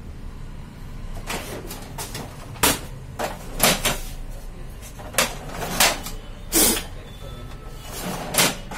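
Plastic front door and paper-tray drawers of a Xerox WorkCentre 7556 copier being shut and pulled out: a string of about ten clunks and knocks. Near the end a loaded paper tray slides open.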